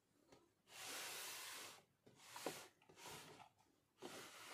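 Near silence: quiet room tone with a few faint, short hisses.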